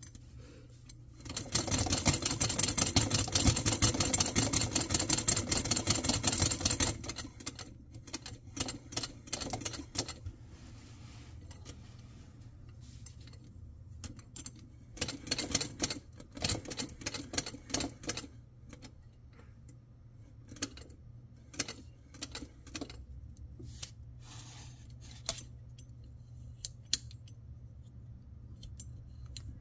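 Antique Singer Model 20 toy sewing machine cranked by hand, its needle bar and gears clattering rapidly for about five seconds. Then come slower, scattered bursts of clicking as the mechanism is turned and handled.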